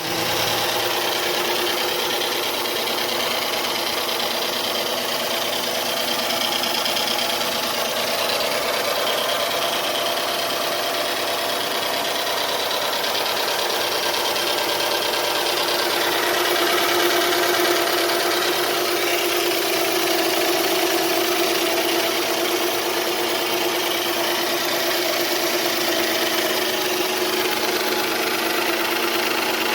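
2007 Dodge Charger V6 engine idling steadily, with the slight ticking noise it is known to have.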